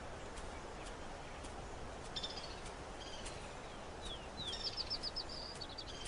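Outdoor nature ambience with a steady hiss and a small bird calling: a few short high chirps and quick down-slurred notes, then a fast run of repeated high notes in the second half.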